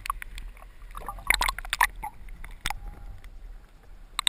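River water heard underwater through a GoPro's waterproof housing: a muffled low rumble with a handful of sharp knocks and clicks in the middle, the housing being bumped and handled below the surface.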